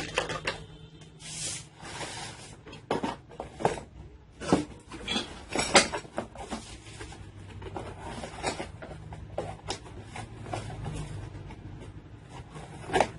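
Irregular knocks, clicks and rubbing of things being handled and set down, about a dozen separate knocks, the loudest a little past the middle.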